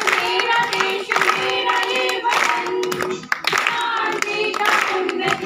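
A group of women singing a song together into a microphone.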